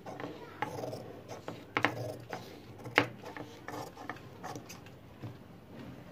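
Large scissors cutting non-woven fabric into thin strips: a run of sharp, irregular snips as the blades close through the cloth, the loudest about three seconds in.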